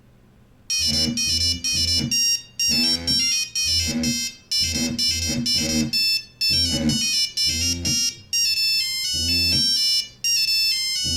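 Mobile phone ringtone playing: a melody of bell-like notes over a bass line. It starts a moment in after a brief hush and runs in short repeating phrases with brief gaps.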